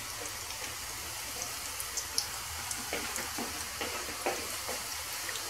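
Dough pieces frying in hot oil in a pan: a steady sizzle with scattered small pops and crackles.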